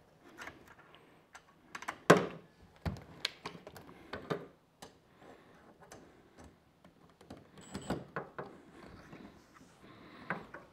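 Scattered clicks and knocks of a plastic rod holder rack and a cordless driver being handled and set against the side of an aluminium boat, the loudest knock about two seconds in.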